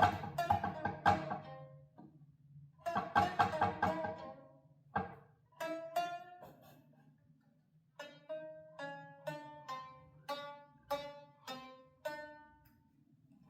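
Homemade plucked string instrument being played. Two quick flurries of notes come first, then single notes plucked one after another about twice a second, each ringing and fading.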